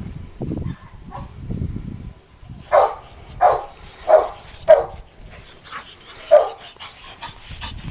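Labrador retriever barking in play: four quick barks about half a second apart, then a fifth after a short pause.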